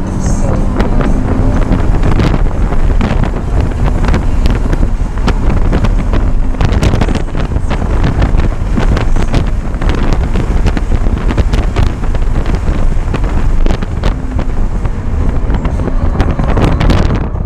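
Cabin sound of a 2015 Scion FR-S's 2.0-litre flat-four engine at racing speed, with heavy wind and road noise. It pulls hard up through the gears, then brakes and downshifts into a corner near the end.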